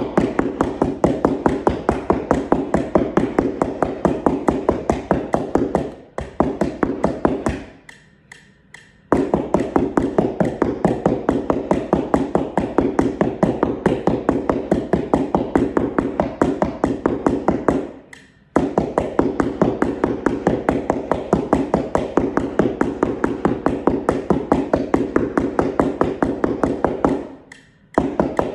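A one-octave floor xylophone struck with two mallets, playing a fast, even run of pitched wooden-sounding notes in long phrases. It stops briefly a few times: near 6 seconds, for over a second around 8 seconds, just after 18 seconds and near the end.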